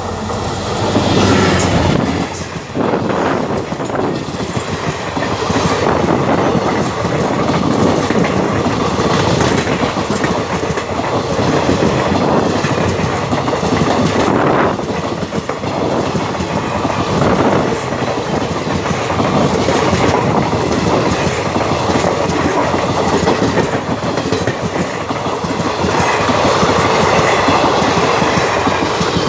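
EMD WDP4 diesel locomotive passing close at speed about a second in, its engine loudest as it goes by. A long rake of passenger coaches follows, rushing past with a steady clickety-clack of wheels over the rail joints.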